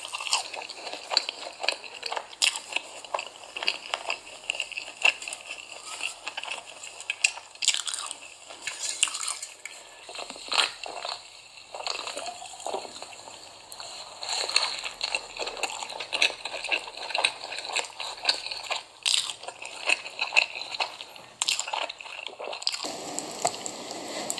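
Close-up eating sounds: irregular crunchy bites and wet, squishy chewing, with no steady rhythm.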